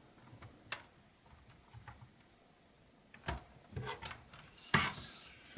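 Sparse small plastic clicks and taps as a laptop's rear hinge cover is pressed down into its stiff clips, with a louder short scrape of handling about five seconds in.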